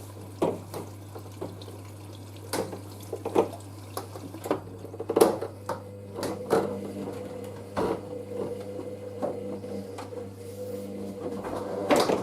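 Water running as a washing machine is topped up with hot water by hand, with scattered knocks and clatter from handling the hose. About five seconds in, a steady mechanical hum starts up and carries on.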